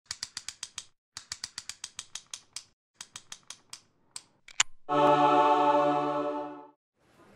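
Logo-animation sound effect: three runs of quick mechanical clicks, about eight a second, like a ratchet or dial being turned, then a few single clicks. About five seconds in a bright held chord sounds and fades out.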